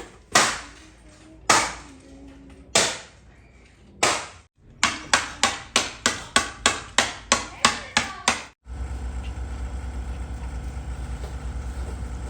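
Hammer striking wood: four single blows, then a fast run of strokes at about four a second. About two-thirds of the way through, the hammering stops and a steady running noise with a fast low pulse takes over, then cuts off at the end.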